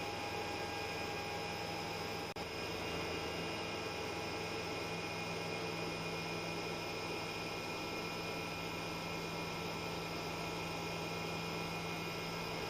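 Steady electrical hum with hiss, several fixed tones held throughout, and a brief dropout a little over two seconds in.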